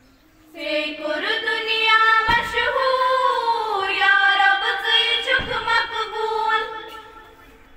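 Young voices singing a Kashmiri prayer song unaccompanied. One long melodic phrase starts about half a second in and fades away near the end.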